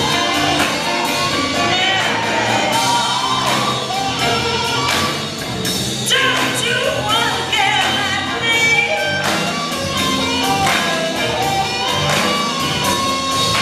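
Blues music with a singing voice over a steady beat.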